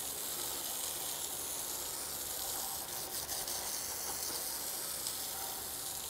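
Garden hose spraying water onto a freshly sawn wooden slab, a steady hiss.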